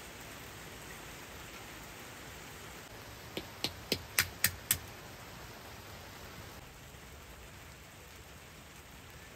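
Steady rain, an even hiss, with a quick run of six sharp clicks, about four a second, near the middle.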